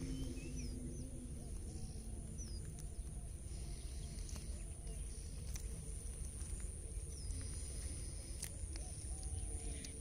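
Outdoor birdsong ambience: a few short, high chirps and soft, low cooing calls that repeat, over a low wind rumble and a steady high-pitched whine.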